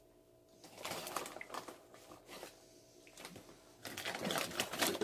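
Crinkling of a chip bag being handled and reached into, a few short rustles at first, then busier crinkling near the end.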